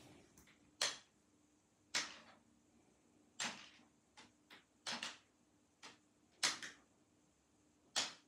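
A peacock feather, used as a cat teaser, swished and slapped against a wooden parquet floor: about nine short, sharp swishes and taps at uneven intervals.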